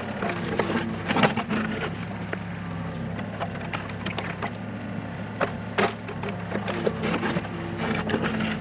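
Neuson 2702 mini excavator's diesel engine running steadily while the bucket digs into turf, with a few sharp cracks and knocks as the bucket tears into the sod and soil.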